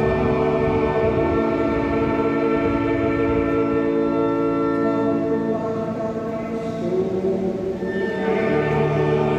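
Choir singing long held chords with accompaniment, the chord changing about two-thirds of the way through.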